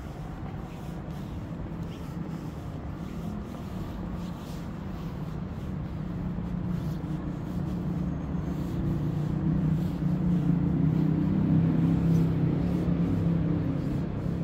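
City street traffic: a low engine and tyre rumble that builds as a vehicle passes close, loudest around ten to thirteen seconds in, then eases slightly.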